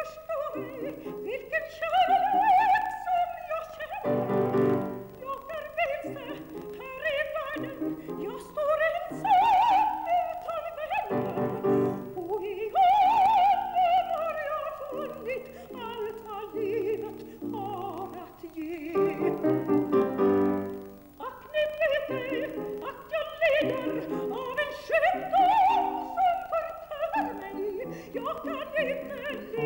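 A woman singing in operatic style with piano accompaniment: long held, wavering high phrases, with piano chords sounding in the pauses between them.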